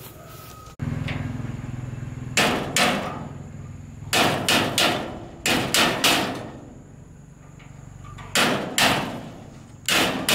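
Hammer striking the rusty hinge of a 1999 Daewoo mini truck's steel side gate, in quick groups of two to four blows with a short metallic ring after each.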